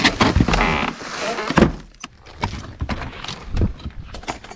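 Rustling and handling noise with a sharp knock about one and a half seconds in, then scattered light clicks and knocks as things are moved about.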